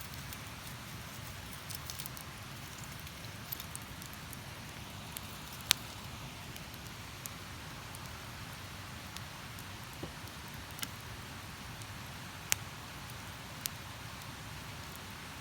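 Wood campfire crackling, with scattered sharp pops, the loudest about six seconds in and another near the end, over a steady rush of river water.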